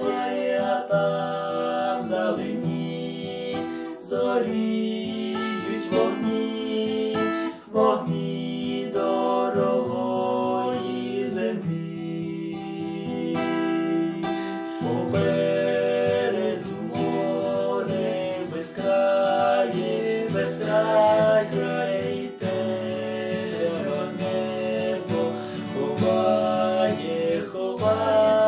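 Instrumental passage of a song on strummed acoustic guitar, with sustained melody notes and changing chords.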